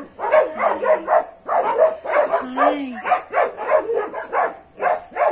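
A dog barking over and over, about three short barks a second. It is jealous, attention-seeking barking from a dog kept away while another dog is being petted.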